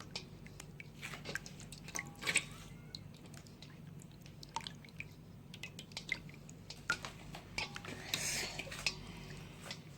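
Faint, scattered wet squishes and little clicks of homemade slime being handled and mixed in water, with a brief soft rustle near the end.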